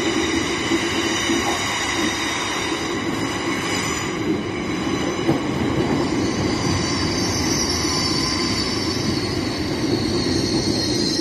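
LNER Azuma high-speed train pulling in alongside the platform, a steady rumble of the passing coaches with high squealing from the wheels and brakes that grows louder in the second half as it slows.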